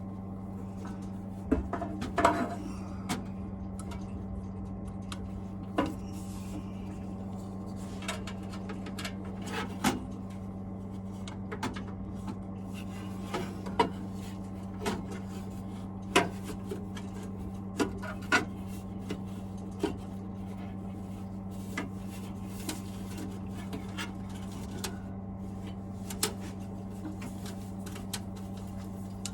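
Boiler parts being refitted by hand: scattered metal clinks, knocks and rubbing as the fan assembly and venturi are fitted back into the boiler casing, over a steady low hum.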